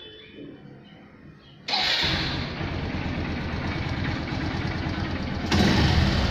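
Honda Livo's single-cylinder motorcycle engine starting up about two seconds in and then idling steadily, getting louder about five and a half seconds in. It runs after a blown fuse has been replaced, showing the new fuse works.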